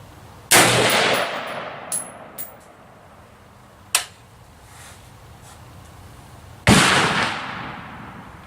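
Two rifle shots from a DPMS Oracle AR-15 firing 5.56×45 mm 55-grain full metal jacket rounds, about six seconds apart, each with a long echoing tail of over a second. Between them come a few short, sharp clicks, the sharpest about four seconds in.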